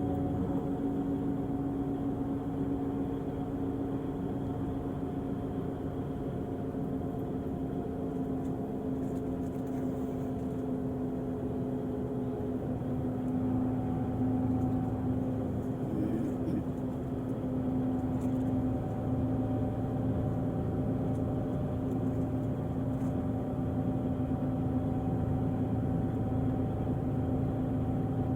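Diesel engine of a Volvo-chassis Irizar i6s coach running steadily, a low drone with a few held tones, getting slightly louder about halfway through.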